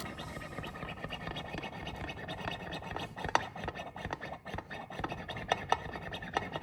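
Porsche 911 hydraulic chain tensioner being pumped by hand in 0W20 oil to prime it and purge the air: a steady scratchy scraping with irregular sharp clicks, a few of them louder.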